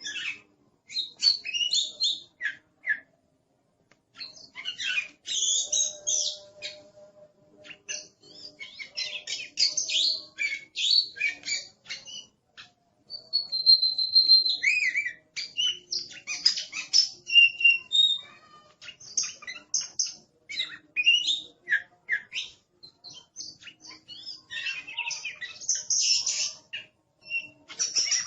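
Oriental magpie-robin singing a fast, varied song of chirps, whistles and harsh notes in quick phrases with short pauses, one note held as a steady whistle about halfway through.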